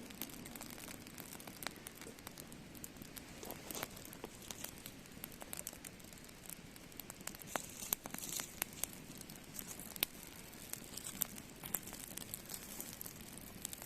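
Faint, irregular crackling and rustling with sharp clicks scattered throughout, a little louder about eight and ten seconds in.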